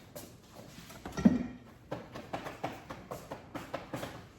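Plates and a cake pan being handled on a kitchen counter: a run of light knocks and taps, with one louder knock about a second in.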